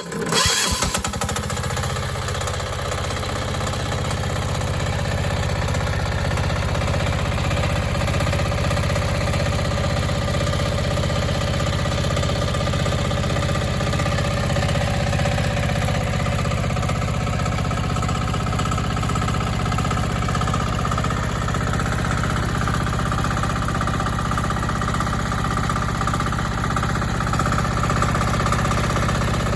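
DH 0115 mini excavator engine starting, then running steadily with an even pulsing beat. About twenty seconds in, a higher steady whine grows stronger over it.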